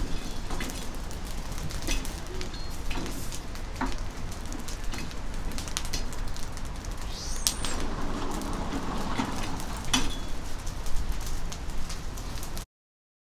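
Kebabs cooking over a charcoal grill, with steady sizzling and scattered crackles and pops. A short high chirp comes about halfway through, and the sound cuts off abruptly about a second before the end.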